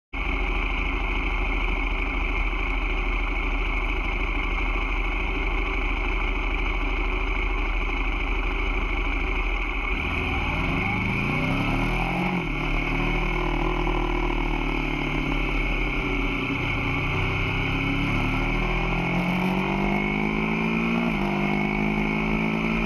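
Sport motorcycle engine over a steady hiss. About ten seconds in, its pitch starts to rise and fall repeatedly as the bike accelerates and changes gear.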